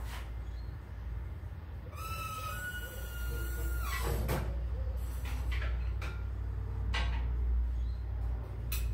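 Metal parts being handled and shifted: a drawn-out squeak lasting about two seconds, starting about two seconds in, and a few knocks and clunks, over a steady low hum.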